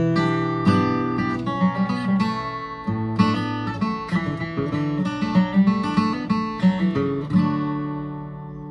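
Steel-string acoustic guitar playing a bluegrass-style intro lick at full speed: a quick run of picked single notes with pull-offs, then a strummed chord about seven and a half seconds in that rings out and fades.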